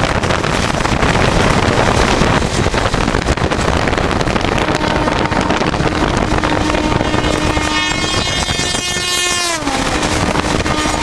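Rushing wind and rail noise of a train at high speed, with its own locomotive horn sounding in long steady blasts from a few seconds in. Near the end an oncoming WAP4 electric locomotive's horn blares loudly and drops sharply in pitch as the two trains pass each other at speed.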